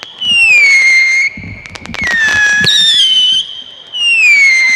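Whistling fireworks going off one after another: loud whistles that each fall in pitch over about a second, with sharp cracks and pops between them about a second in and again near the end.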